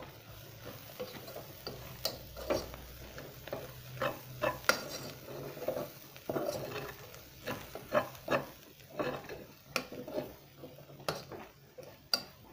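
Metal spoon stirring green grams (mung beans) in a steel saucepan, with irregular clinks and scrapes against the pot several times a second, over a sizzle of the beans frying in oil with curry powder.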